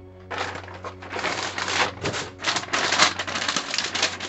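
Tissue paper crinkling and rustling as hands unwrap it, a dense crackle of many rapid small crackles that starts about a third of a second in and keeps on without a break.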